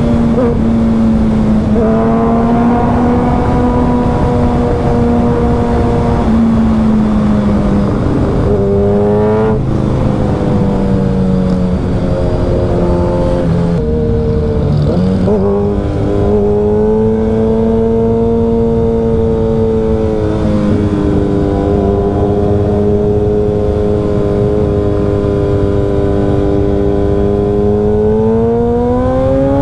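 Suzuki Hayabusa inline-four engine running loud through a Brock's Performance Alien Head aftermarket exhaust at a steady road speed. The engine note dips and rises quickly about eight to ten seconds in, drops again about halfway, and climbs near the end.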